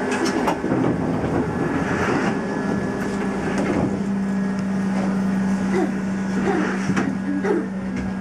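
An Ohmi Railway 220-series electric train standing at a station, heard from its cab. A steady low hum from the train's equipment grows stronger about two seconds in, with a few faint clicks and knocks.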